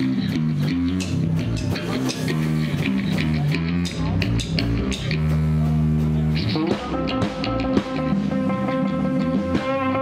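Live rock band of electric guitar, bass guitar and drum kit playing a heavy, low riff with cymbal hits. About two-thirds of the way through, a guitar slides upward into a higher line of held, repeating notes over the band.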